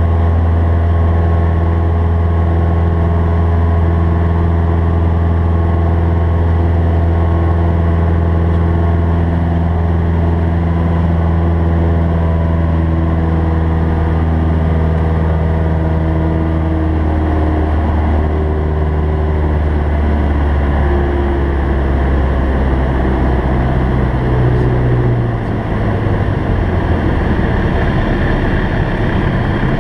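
Cessna 172SP's four-cylinder Lycoming IO-360 engine and propeller running steadily, heard inside the cabin. Near the end the engine note changes and its deep hum drops away.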